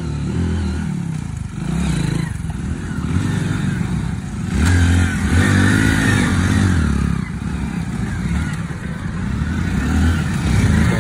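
Hero Splendor motorcycles, small single-cylinder four-stroke engines, riding past one after another, the engines revving up and easing off.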